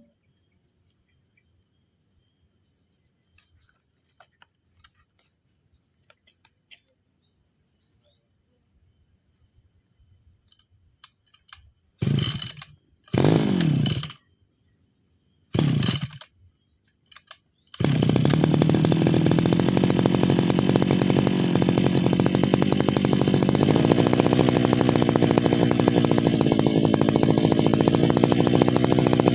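Small petrol engine of a brushcutter being started: after some faint handling clicks it fires briefly three times, each burst dying away with falling pitch, then catches about eighteen seconds in and runs steadily.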